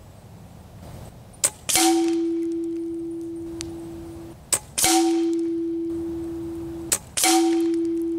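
Three shots from a Hatsan Factor RC regulated PCP air rifle, each a short sharp crack followed about a third of a second later by a clear metallic ring from the pellet striking metal downrange. Each ring is louder than the shot and fades over two to three seconds.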